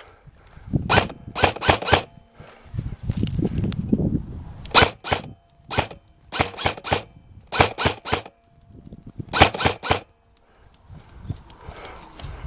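Airsoft gun firing short bursts of two or three shots, repeated several times with pauses between. A low rustle of handling comes in between bursts, about three seconds in.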